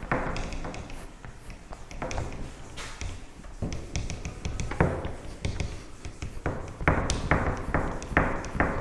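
Whiteboard duster being scrubbed across a whiteboard to erase marker writing, in short repeated strokes with a few sharp knocks against the board.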